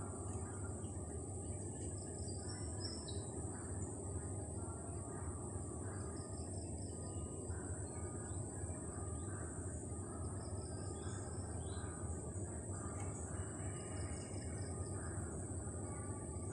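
Birds calling in short scattered calls over a steady low hum and a constant high-pitched whine.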